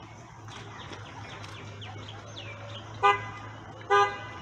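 A vehicle horn gives two short toots less than a second apart, near the end. Faint high chirps that fall in pitch come before them.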